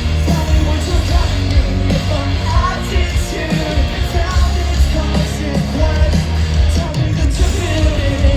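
Live rock band playing loudly, a singer's voice carried over heavy bass and drums.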